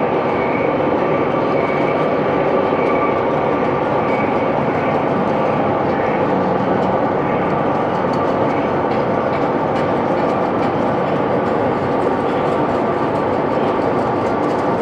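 A CNC horizontal boring mill with a 110 mm spindle running: loud, steady mechanical noise with a high-pitched whine.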